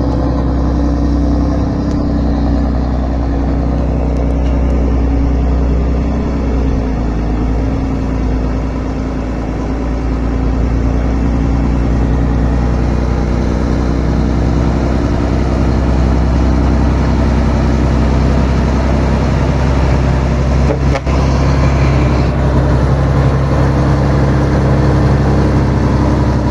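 Heavy truck loaded with sand, its engine running steadily as it pulls slowly up a dirt road. The engine gets louder near the end as the truck comes close.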